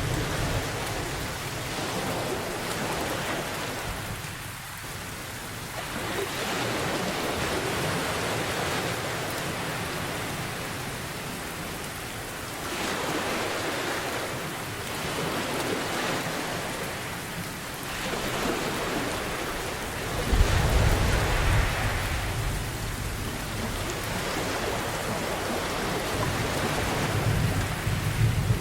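Steady rain pouring, its hiss swelling and easing every few seconds, with deep rumbling thunder that rolls in about two-thirds of the way through and comes again near the end.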